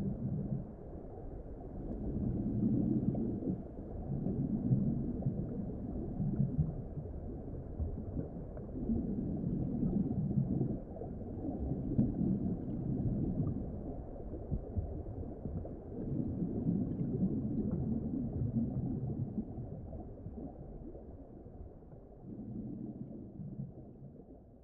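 Low, muffled underwater ambience: deep rumbling swells rise and fall every few seconds, then fade out near the end.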